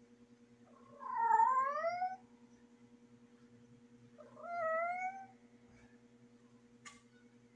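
Female cat in heat calling: two long, drawn-out yowls, the first about a second in and louder, the second about four seconds in, each dipping and then rising in pitch.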